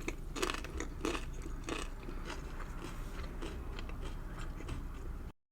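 Close-miked chewing of a mouthful of tuna sandwich: irregular soft wet clicks and smacks. The sound cuts off abruptly near the end.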